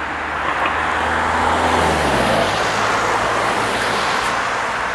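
Cars passing on an asphalt street: tyre noise and engine hum. The engine note falls about two seconds in as a car goes by.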